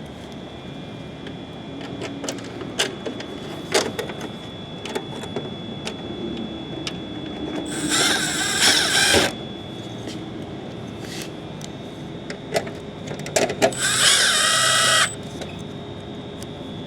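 Cordless power driver whirring in two short bursts of about a second each, running headlight Torx screws in, with scattered clicks and knocks of parts and tools being handled between them.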